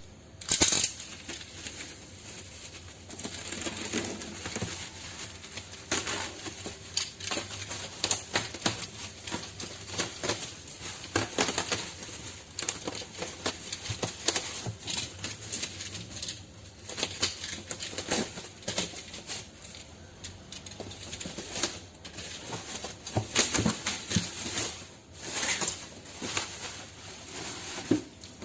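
Irregular clicks, knocks and rustling of objects being handled, spaced unevenly with no steady sound beneath.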